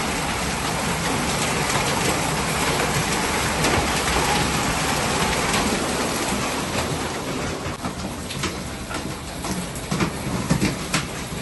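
Heavy rain and hail pouring down into a small walled courtyard, a dense steady hiss. About seven seconds in it becomes quieter and more distant, with scattered sharp clicks and knocks near the end.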